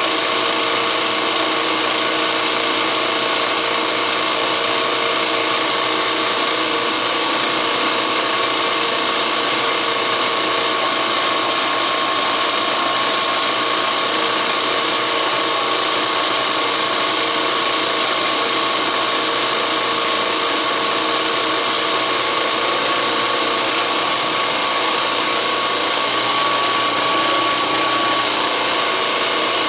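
Small drill press running steadily, drilling holes in steel, with a constant motor whine that does not let up.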